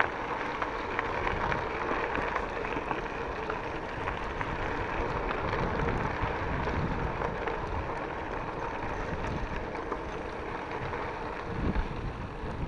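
Bicycle tyres rolling over a gravel path, a steady rushing noise with fine scattered ticks, mixed with wind buffeting the microphone.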